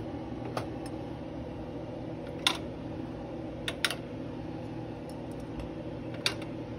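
A steady low hum, with a handful of short, sharp clicks and taps from handling, the loudest about two and a half seconds in and another near the end.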